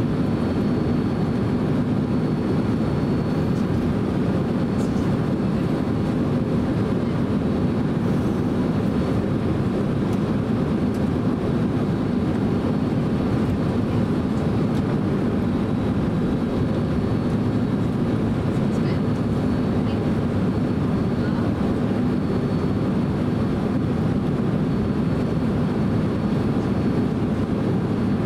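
Cabin noise inside a Boeing 767-300 while it taxis: the engines at taxi power and the airflow give a steady, even rumble with a faint steady high whine above it.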